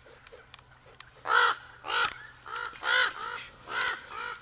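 A bird calling in a run of short repeated calls, about two a second, starting about a second and a half in.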